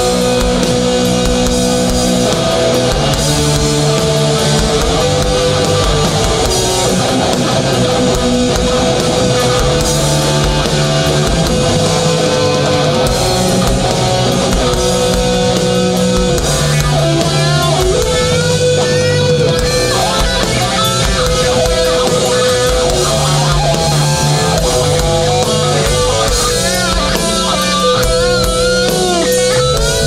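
A crossover thrash band playing live and loud: distorted electric guitars, bass and drum kit.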